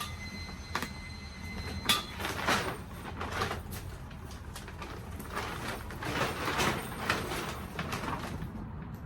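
Handling noises while the carport's side cover is fastened to the frame: the cover rustling and scraping, with a few sharp clicks and knocks, the loudest about two seconds in.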